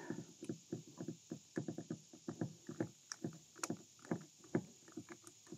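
Faint, quick run of small clicks and taps, several a second, as a screw is turned in by hand on a kayak's plastic steering-control plate.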